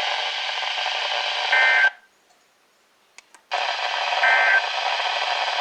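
NOAA Weather Radio broadcast hiss after the voice message ends, with a short data chirp twice, typical of the SAME end-of-message code. Between the chirps the audio drops out for about a second and a half, with two faint clicks in the gap.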